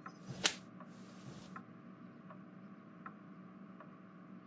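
A sharp click about half a second in, then a short hiss, followed by faint, regular ticking about every three-quarters of a second.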